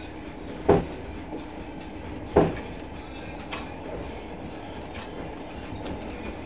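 Passenger train rolling along, heard from inside the carriage: a steady rumble of wheels on the track, with two loud clacks about a second and a half apart near the start and a few fainter ticks after, as the wheels cross rail joints or points.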